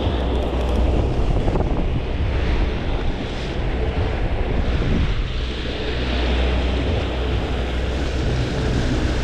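Wind buffeting the microphone over the steady running of a 200-horsepower outboard and its churning wake as the boat moves along under way. A steady, even rush with a heavy low rumble.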